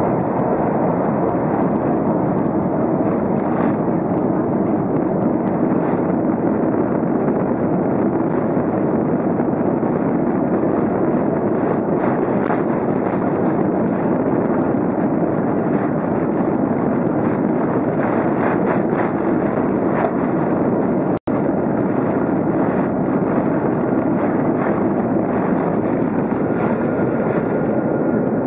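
Inside the cabin of a BAe 146 airliner, its four turbofan engines at takeoff power: a steady loud roar with many small rattles and knocks running through it. The sound cuts out for an instant about 21 seconds in.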